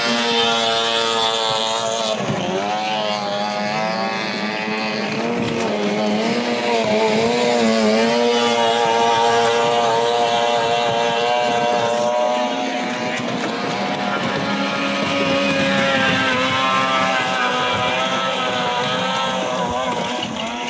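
Several 15 hp outboard motors on racing longboats running together, a loud steady drone whose pitch wavers up and down.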